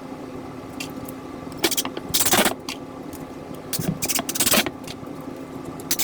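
A power driver running screws into wood in short bursts, about two and four and a half seconds in, with clicks and knocks of handling between, over a steady low hum.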